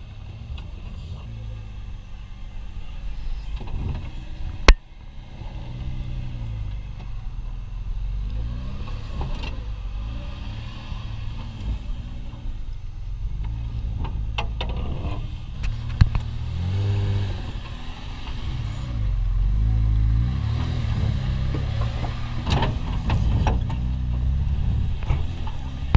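Volvo TGB 13 6x6's straight-six petrol engine running under load, rising and falling in pitch again and again as the truck crawls over rough ground. Two sharp knocks come about eleven seconds apart.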